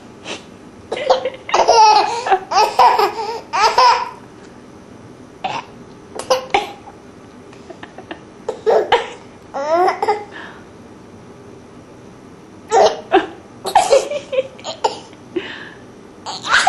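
Baby laughing in short bursts, in four spells with pauses between.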